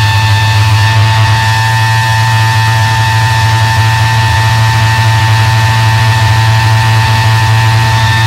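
Harsh electronic noise drone: a loud, steady low hum under a sustained high whine and hiss.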